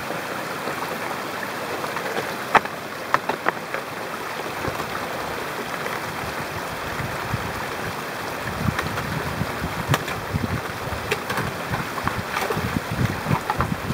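Shallow mountain stream rushing steadily around snow-covered boulders and ice, with a few sharp clicks from trekking pole tips striking rock, and irregular low thumps of wading steps in the second half.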